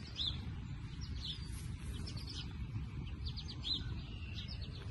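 Small birds chirping: short, high calls and quick sweeps about every second, with a quick run of chirps near the middle, over a low steady rumble.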